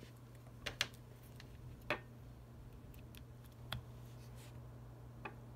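A few sharp, light clicks and taps from handling an iPhone 6 and plugging the charging cable into its freshly cleaned charging port, over a steady low hum.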